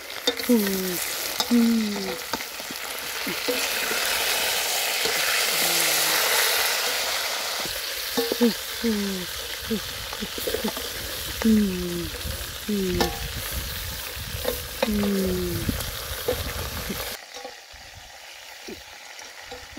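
Pot of chicken and papaya soup simmering over a wood fire while a wooden spoon stirs it: a steady hiss that drops away sharply near the end. Over it come low hooting calls from a bird, each falling in pitch and mostly in pairs.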